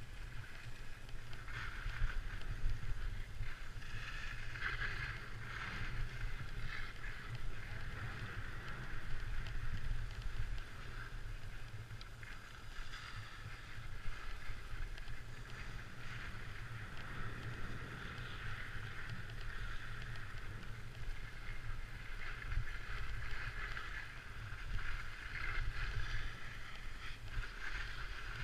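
Skis hissing and scraping over packed snow during a downhill run, the sound swelling and fading, over a continuous low rumble of wind on the action camera's microphone.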